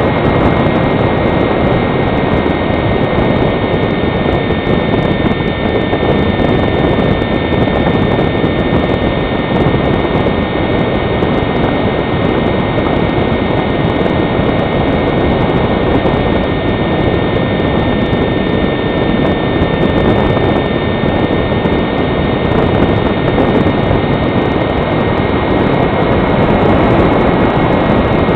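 Steady rush of air over a camera carried on a model glider in flight, with a faint, unchanging high whine over it.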